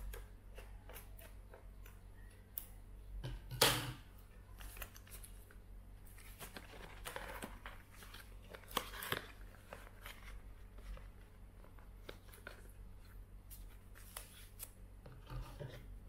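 Scissors cutting the packing tape on a cardboard parcel: scattered crisp snips and clicks, with the sharpest snap about three and a half seconds in, and a stretch of scratchy rustling from the middle onward as the tape and cardboard are worked open.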